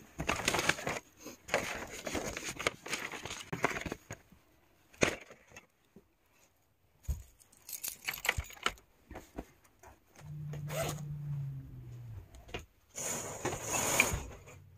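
Paper rustling and crinkling in irregular bursts as a large sheet of paper is handled, with a sharp click about five seconds in. A brief low hum, sliding slightly lower, comes about ten seconds in.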